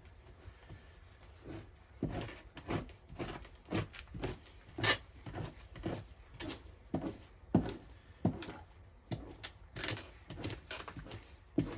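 Victorinox knife blade scraping fat off a beaver pelt being fleshed, in short quick strokes about two a second, starting about two seconds in.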